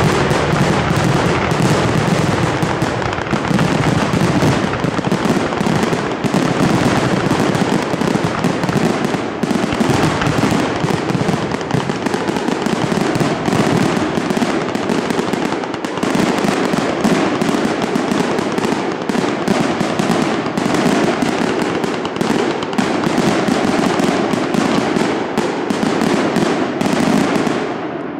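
Closing barrage of aerial firework shells: a dense, unbroken run of bangs and crackle over a deep rumble, dying away near the end.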